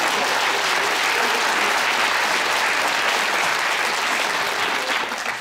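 Theatre audience applauding, a dense steady clapping that dies away near the end.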